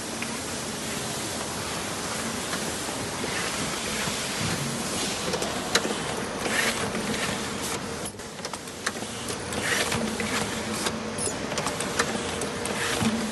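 Fruit-packing line machinery running: conveyor belts and packing machines give a steady hum with a faint steady tone. From about five seconds in come scattered sharp clicks and short hisses from the machines.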